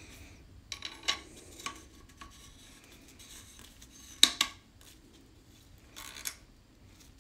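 Suppressor being fitted onto a rifle's quick-detach muzzle adapter to test lockup: a few short metal clicks and scrapes, the loudest about four seconds in.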